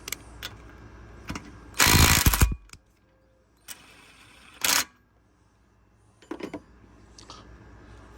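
Hyper Tough 12V brushed cordless impact driver hammering on a bolt in an 80 foot-pound torque test. One loud burst of just under a second comes about two seconds in and a short second burst near five seconds, with a few clicks and knocks around them.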